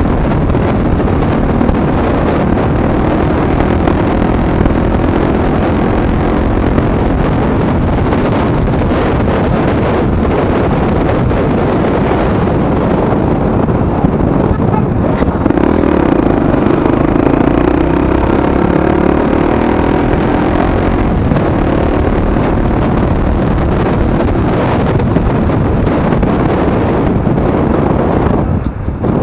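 2014 Honda Tornado's single-cylinder four-stroke engine running through an aftermarket exhaust while riding in town, with wind on the microphone. The revs climb about halfway through and the engine briefly drops off near the end, as when the throttle is closed.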